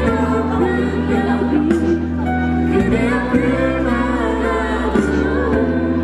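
A small mixed vocal group singing live through microphones and a PA, with long held low bass notes underneath.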